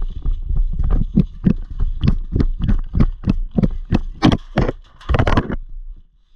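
Running footsteps on wood-chip mulch and grass, about three steps a second, with the carried gear jostling. The steps get louder and scuffier about four seconds in, then stop shortly before the end.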